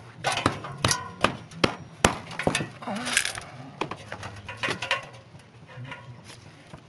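Claw hammers pounding roofing nails, several people striking at once in sharp, irregular blows. The blows come thick in the first few seconds and thin out near the end.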